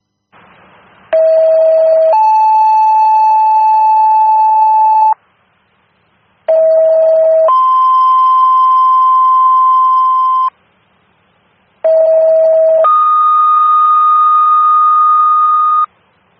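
Fire department two-tone sequential paging tones over a scanner radio, sent three times. Each is a lower tone of about a second followed by a higher tone held for about three seconds, and the second tone is higher each time. The tones set off the pagers of the companies being dispatched.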